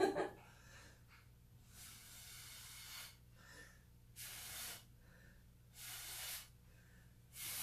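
Blowing through a drinking straw onto wet acrylic pour paint to push it across the canvas: four airy puffs, the first a long one of over a second, the others short.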